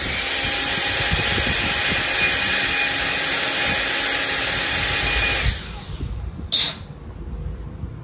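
Small brushed DC vacuum-cleaner motor with a plastic impeller, run free on a single Li-ion cell, spinning at about 23,750 RPM as a steady high whine over rushing air. It cuts off about five and a half seconds in. A short burst of noise follows about a second later.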